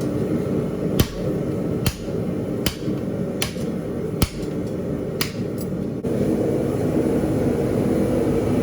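Hand hammer striking hot steel on an anvil while splitting round stock for a spur, about seven ringing blows a little under a second apart, stopping after about five and a half seconds. A steady low roar runs underneath and gets louder from about six seconds in.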